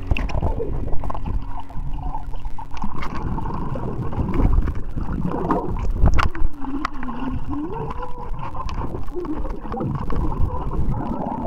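Muffled underwater sound from a camera held under the water of a swimming pool: churning water with small knocks and clicks. A few seconds past the middle, a muffled wavering tone sags and rises again.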